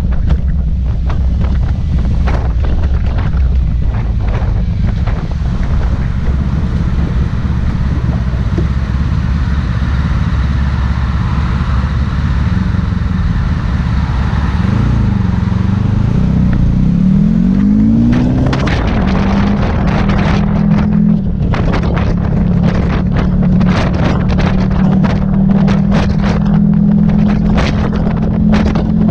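Honda ST1100 Pan European's V4 engine running at low speed, then rising in pitch as the bike accelerates away about halfway through. It then runs steadily at cruising speed, with wind buffeting the microphone.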